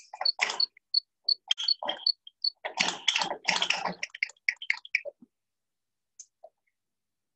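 Quick high metallic ticks, about three a second, and clattering clicks from a spanner and fittings being worked on a diesel engine's fuel injection pump while it is bled of air. The sound stops about five seconds in.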